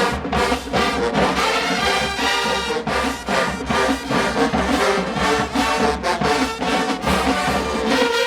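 HBCU show-style marching band playing: loud brass section of trombones and trumpets over drums keeping a steady beat.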